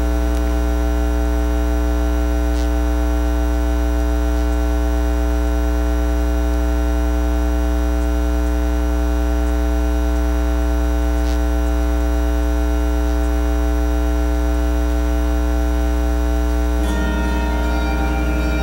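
Loud, steady electrical mains hum on the sound feed. About seventeen seconds in, a handbell choir begins to ring.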